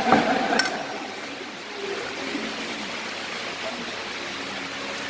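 Two sharp knocks in the first second, then steady room hiss with faint voices of people around a table.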